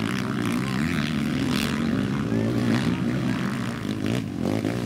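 Several sidecarcross outfits' motorcycle engines racing, their pitch rising and falling as the throttles open and close, with a short lull about four seconds in.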